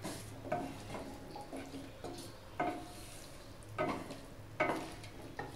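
Wooden spatula stirring and scraping chickpea masala in a stainless steel sauté pan, knocking the pan several times with a brief metallic ring. A faint sizzle runs underneath as the masala is fried down without oil.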